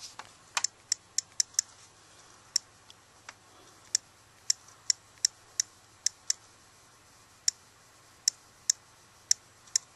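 Sharp, irregular clicks of typing on an iPod Touch's on-screen keyboard, about twenty taps in quick runs with short pauses between them.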